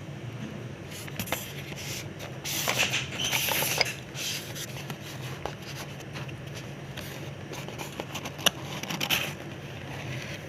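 Scraping and rustling of objects being handled, in a burst about two and a half seconds in and another near the end, with scattered clicks over a steady low hum.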